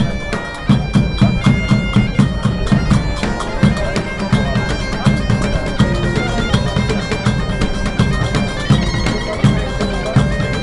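Bagpipes playing a melody over a steady drone, with a troupe of large bass drums and frame drums beating a fast, steady rhythm of about three to four strokes a second.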